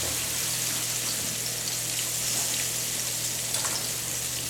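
Flour-dredged ground bison patties frying in a hot cast iron skillet: a steady sizzle of fat with small pops and crackles, over a low steady hum.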